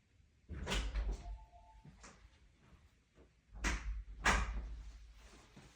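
Knocks and clunks of something being handled, in two clusters about three seconds apart, each with a low thud.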